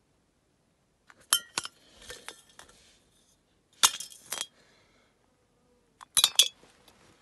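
Empty metal aerosol cans, holed by air-rifle pellets, clinking and rattling as they are handled and knocked together, in three short bursts of clinks with a brief metallic ring: about a second in, near four seconds, and just after six seconds.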